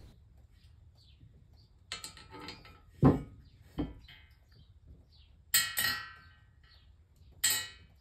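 Small steel hardware clinking against a cast-iron desk frame as parts are fitted into its seat pivot: a few separate metallic clinks with short ringing, and a dull knock about three seconds in that is the loudest sound.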